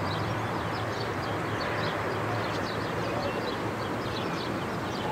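Outdoor ambience: small birds chirping over a steady low rumble and hiss.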